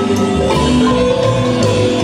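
Guatemalan marimba band playing through a PA system at a sound check: marimba notes held over a steady bass line.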